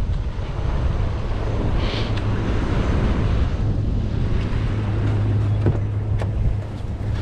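Nissan Titan pickup's V8 engine idling with a steady low hum that grows stronger as the truck is reached, with wind buffeting the microphone.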